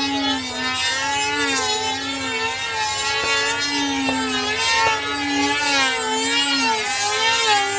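Two small two-stroke model airplane engines running at high revs, their whining pitches wavering up and down as the radio-controlled combat planes loop and pass.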